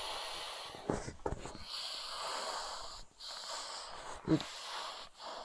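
Air hissing out through the open valve of an inflatable travel neck pillow as it is pressed flat, coming in a few surges as the hands push down, with the fabric rustling.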